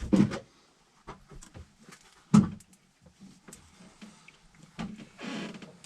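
Work-handling noises: a couple of loud knocks, the loudest about two seconds in, among scattered light clicks and a brief rustle near the end.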